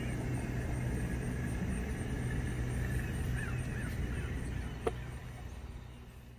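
Outdoor ambience: a steady low rumble with faint bird chirps over it, and a single sharp click about five seconds in. The sound then fades out near the end.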